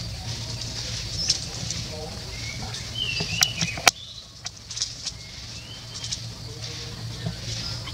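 Young long-tailed macaques scampering and scuffling over dry leaf litter, with scattered sharp clicks and a few short high chirps. The background drops suddenly about four seconds in.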